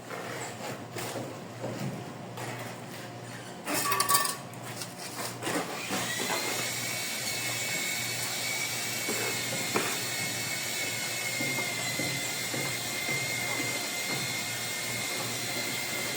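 Electric tile-cutting power tool: its motor spins up about six seconds in and runs at a steady speed with a high, even whine. Before that come scattered knocks and a short loud clatter of tile and tools being handled.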